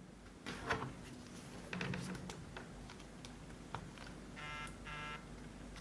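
Faint handling clicks of small plastic gadgets, then two short electronic buzzing beeps in quick succession about four and a half seconds in.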